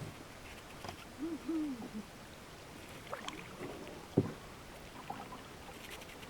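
An owl hooting twice: two short, low, rounded notes a little over a second in. About four seconds in comes a single sharp knock.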